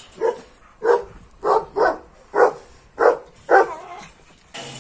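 A dog barking repeatedly, about seven barks roughly half a second apart.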